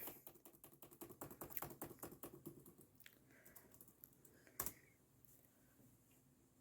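Faint clicking of laptop keyboard keys being pressed in a quick run, then a few scattered presses and one sharper click about four and a half seconds in.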